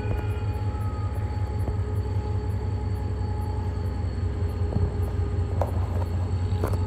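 Diesel engine of a Pakistan Railways HGMU-30-R diesel-electric locomotive running with a steady low drone, with a constant whine over it.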